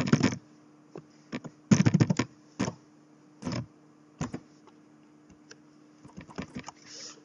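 Computer keyboard typing in short irregular bursts of keystrokes, with pauses between them and a faint steady hum underneath.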